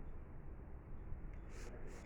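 Electric fan running with a steady whir and low hum, and a short hiss near the end.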